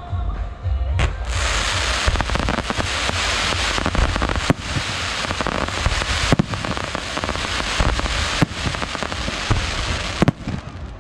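Fireworks display: aerial shells and sparking fountains going off together, a dense crackle and fizz that swells about a second in, cut by sharp bangs, with the loudest reports about four and a half, six and a half, eight and a half and ten seconds in.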